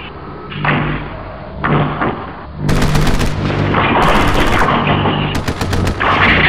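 Electronic dance music with a heavy beat, then, from a little under three seconds in, three bursts of rapid machine-gun fire sound effects over the continuing music.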